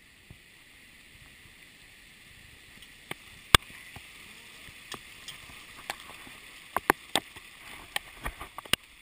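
Rain falling on the river, a steady hiss that grows slowly louder, with scattered sharp taps on top, the loudest about three and a half seconds in and most of them bunched in the second half.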